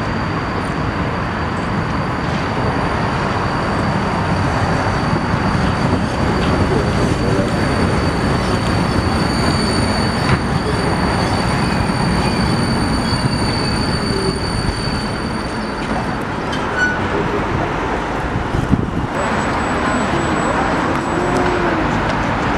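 Low-floor tram rolling past close by, a steady rumble of wheels on the rails with a thin high-pitched squeal over it that stops about two-thirds through. A short high squeal comes again near the end.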